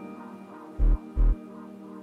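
Electronic background music: sustained synth tones with two deep bass beats about a second in.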